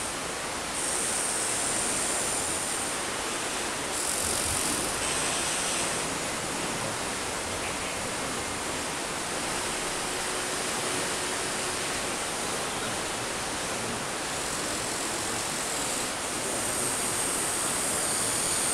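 Steady rushing of nearby running water, with a faint high whine that starts and stops several times: the Huina 1593 RC excavator's electric motors working its arm.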